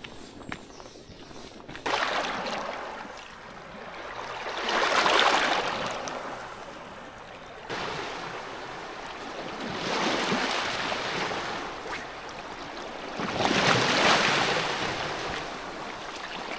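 Small waves washing up a stony beach and drawing back, swelling and falling about every four to five seconds. During the first two seconds there are faint footsteps on a path.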